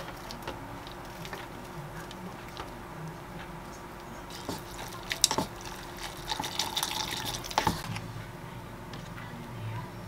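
Water being poured off a cup of cooked instant noodles, splashing and dripping for a few seconds in the middle, with a couple of sharp knocks.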